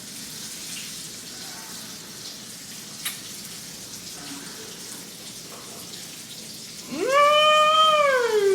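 A faint steady hiss with one click, then near the end a single long drawn-out vocal call that rises, holds for about a second and falls in pitch.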